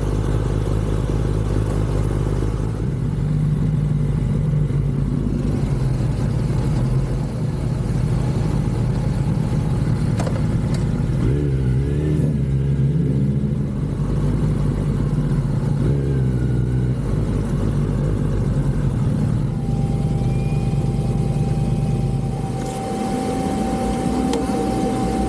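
Sport-bike engines idling, a steady low drone. A steady high tone joins in about twenty seconds in.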